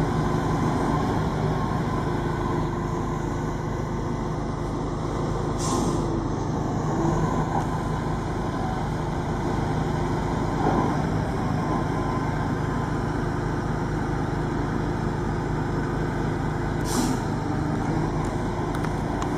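Heavy truck diesel engine running steadily, with two short hisses of released air, about six seconds in and again near the end.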